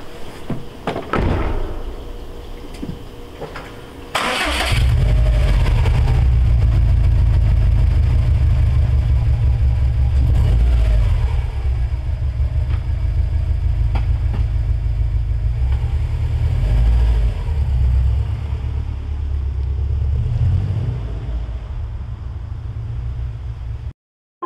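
A car door shuts, then a few seconds later a Subaru WRX's flat-four engine starts and settles into a steady, low idle that wavers slightly. The sound cuts off near the end.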